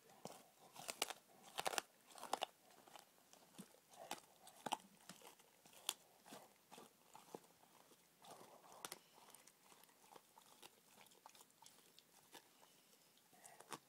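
A collie–shepherd cross dog crunching and chewing a raw rabbit rack, its teeth cracking the bones in irregular sharp crunches, thickest about a second or two in.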